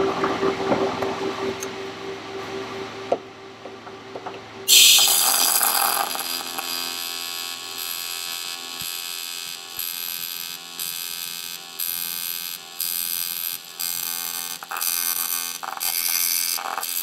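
TIG welding arc on aluminum, a harsh high-pitched buzz. It starts suddenly about five seconds in and runs in stretches, cut by short breaks where the arc stops.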